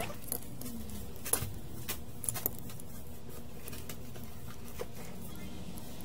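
About half a dozen small sharp clicks and taps of metal parts as a phone logic board is handled and set in a metal board holder, the loudest a little over a second in, over a steady low hum.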